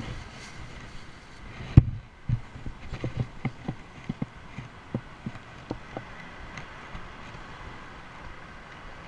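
Handling noise close to the microphone: a sharp knock, then a run of uneven dull knocks and rubs as the camera is moved and a cap is handled in front of it, over a steady background hiss.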